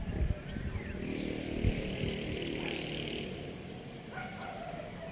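A motor vehicle engine passing by, rising and fading over a couple of seconds, with a few short falling bird chirps.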